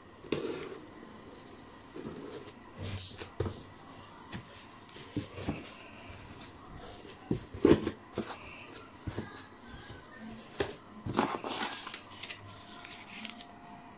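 Cardboard shipping box being opened by hand: irregular scraping and rustling of the cardboard flaps and packing tape, with scattered knocks and one sharp thump about halfway through.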